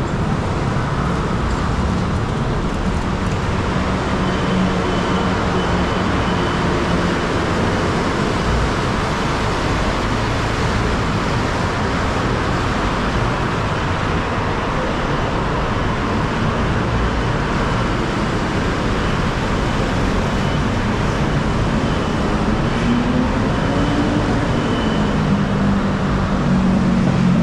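Steady city traffic noise, a dense wash of road vehicles. Near the end a vehicle engine note rises in pitch.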